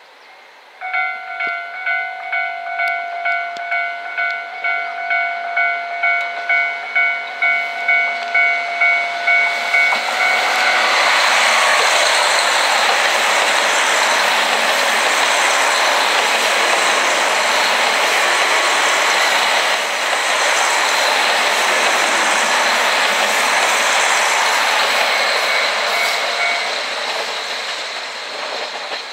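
An electronic warning bell rings at a steady pitch about twice a second. From about ten seconds in, a KiHa 261 series diesel multiple unit limited express passes through at speed, its engines and wheels loud for some fifteen seconds before easing off, and the bell is heard faintly again near the end.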